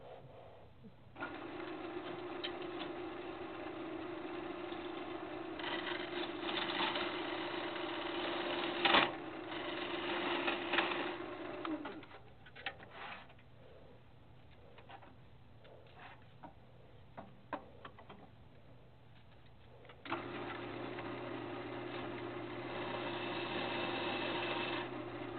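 Turning tool cutting an apple wood and resin blank spinning on a wood lathe: a steady scraping hiss with a held tone, over the lathe's low motor hum. The cutting runs from about a second in to about twelve seconds, gives way to a quieter stretch of the lathe running with a few light clicks, and starts again at about twenty seconds.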